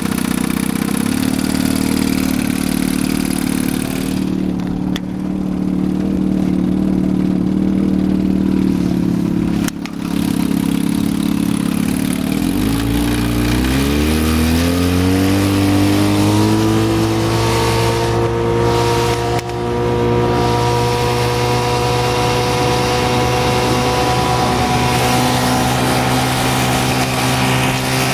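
Evinrude outboard motor running steadily, then about twelve seconds in speeding up with a rising pitch over a few seconds, and holding at the higher speed.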